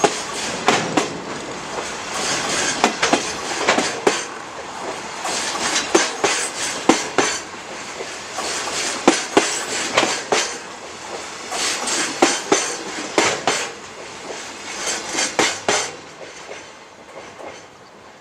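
Wheels of a freight train of Koki container flatcars clattering over rail joints, the clicks coming in groups about every three seconds as each pair of bogies passes, with a steady rumble of running wheels. The clatter dies away near the end as the train moves off.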